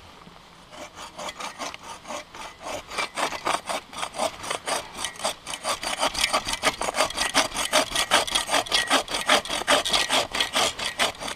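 Sven Saw folding bow saw cutting through a downed Manitoba maple log, with a steady back-and-forth rasp of rapid, even strokes. The strokes start softly just under a second in and grow louder and quicker over the next few seconds.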